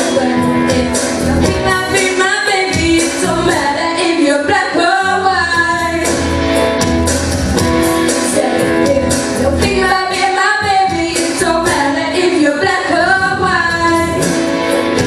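A young girl and boy singing a pop duet into handheld microphones over a recorded backing track, amplified through a PA. There are two sung stretches, with a mostly instrumental passage between them in the middle.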